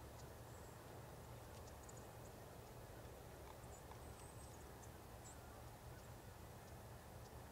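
Near silence: a steady low hum and hiss, with faint, short high chirps scattered throughout.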